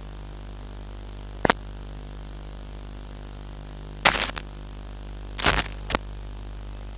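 Steady electrical hum through a PA system, broken by sharp knocks and rubbing from a handheld microphone being handled: a double click after about a second and a half, then two short bursts of knocks around four and five and a half seconds in.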